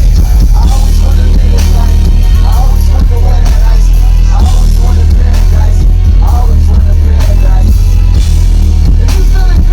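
Loud live concert music through a stadium sound system, dominated by a steady heavy bass.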